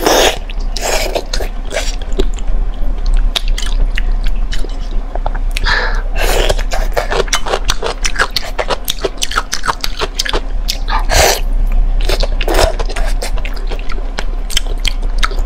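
Close-miked wet chewing and lip smacks as soft braised meat in thick sauce is eaten, with a sucking sound as a piece goes into the mouth at the start and a few louder wet mouthfuls later on. A steady low hum runs underneath.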